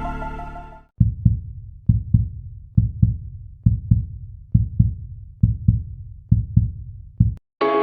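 Heartbeat sound effect: pairs of short, low thumps, about one pair a second, eight times. It follows music that fades out in the first second, and music comes back in near the end.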